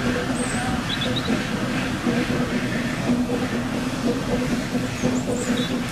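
Narrow-gauge steam locomotive working slowly with its coaches: a steady hiss and rumble of steam over a steady low hum.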